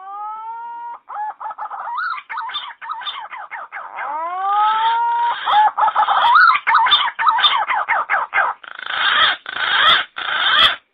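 Green pigeon (punai) calls played as a lure. A whistled note rises and levels off, followed by a fast run of warbling, fluting whistles. A second rising whistle comes about four seconds in, and the call stops abruptly near the end.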